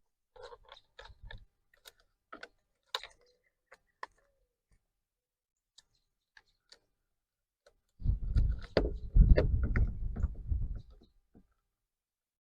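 Light clicks and taps from plastic parts and wiring being handled while a steering wheel is fitted back onto its column. About eight seconds in comes a louder stretch of about three seconds of rubbing and clattering.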